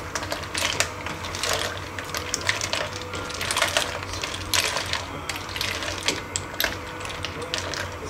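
Sea snail shells clicking and clattering against one another and a hard container: many sharp, irregular clinks, several a second, over a steady low hum.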